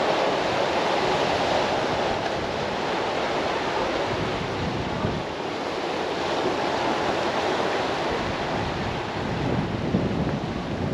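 Sea surf washing against rocks, a steady rush, with wind blowing on the microphone.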